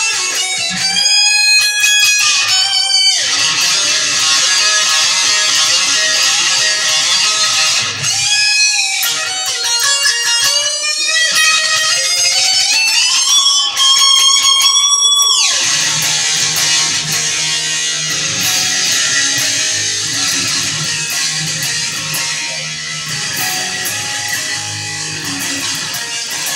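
Electric guitar played through an amplifier. For about fifteen seconds it plays a lead line full of string bends, ending on a long held bend. Then it switches to a low rhythm riff.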